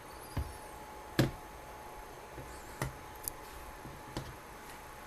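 Handling noise: a few scattered sharp clicks and light knocks, the loudest about a second in, over a faint steady hum.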